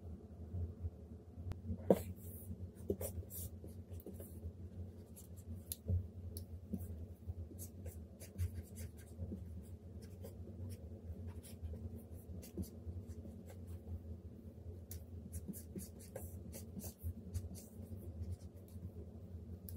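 Stylus scratching and tapping across the screen of a Huion Kamvas Pro 19 pen display in drawing strokes. It makes a scratchy pen-on-surface sound with many short ticks, over a low steady hum.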